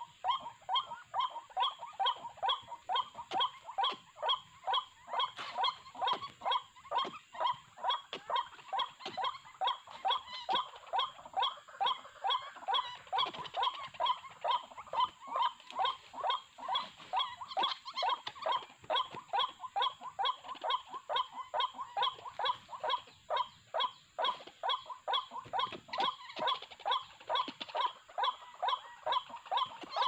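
White-breasted waterhen calling 'wak-wak' in a steady, unbroken series of short notes, about three a second.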